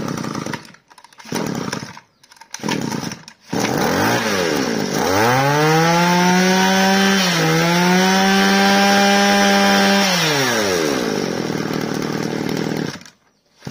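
Mitsubishi TB26 26cc two-stroke brush cutter engine being pull-started: a few short bursts as it sputters and catches. It is then revved up to a high, steady whine for about five seconds, with one brief dip, and let fall back to idle before it cuts out.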